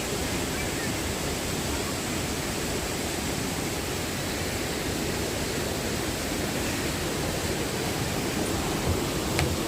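Steady rushing of a mountain stream or waterfall, an even hiss with no breaks. A short click near the end.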